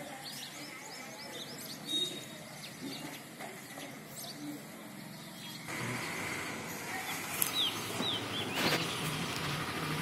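Small birds chirping in short, high calls. A little past halfway a steady engine noise comes in beneath them, and a few quick falling chirps sound over it.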